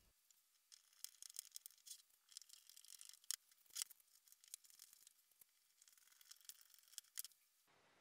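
Faint, irregular small clicks and scratching as screws are driven through a 3D-printed plastic bracket into the side of a 3.5-inch hard drive.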